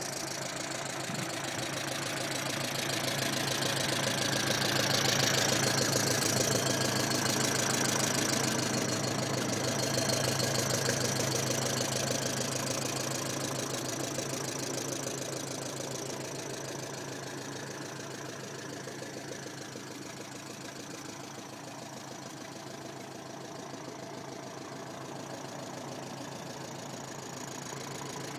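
Grey Ferguson TE20 tractor engine running steadily, growing louder over the first several seconds, peaking around six seconds in, then gradually fading.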